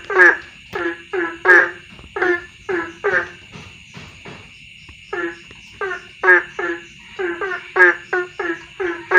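Frogs calling loudly, known locally as 'tungtet' frogs: short croaks repeat about two to three times a second, with a gap of about a second in the middle. Insects trill steadily underneath.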